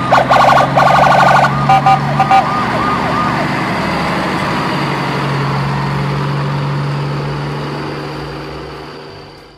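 Electronic siren-like warbling over a steady low hum. The warbling stops a couple of seconds in, and the hum goes on, fading out near the end.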